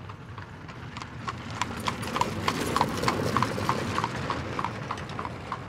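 A horse's hooves clip-clopping at a walk, about three steps a second, growing louder as it approaches, over a low steady rumble.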